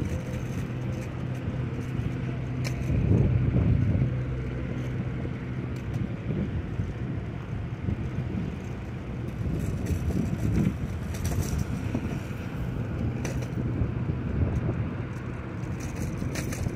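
Car engine hum and tyre noise of a vehicle driving along a street, steady with small swells, and some wind on the microphone.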